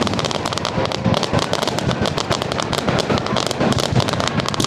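Fireworks display: a dense, continuous run of rapid crackling pops and bangs.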